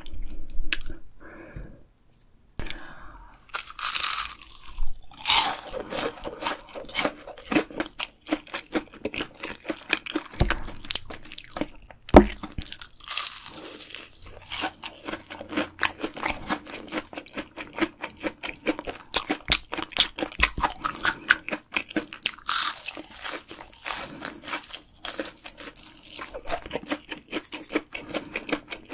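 Close-miked crunching and chewing of crispy Korean fried snacks (twigim), a rapid, irregular run of crisp bites and chews with a few louder crunches.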